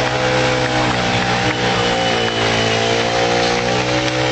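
Engine of a modified 4x4 trial truck running at steady, raised revs, a continuous drone whose pitch sags slightly midway.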